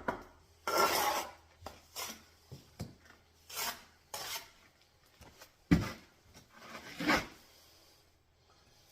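Mason's trowel scraping and spreading mortar on brick in several short scrapes, with one sharp knock a little past the middle.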